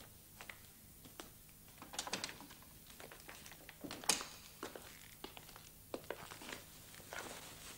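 Faint rustling with scattered light clicks and taps, a small cluster about two seconds in and a sharper one about four seconds in.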